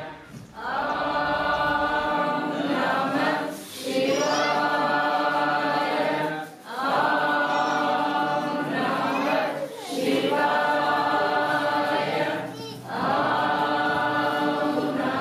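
A group of voices singing a devotional chant, in about five phrases of roughly three seconds each with short pauses between them.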